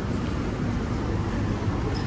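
Steady low rumble and hum of an MTR Tuen Ma Line Kinki Sharyo–Kawasaki electric train.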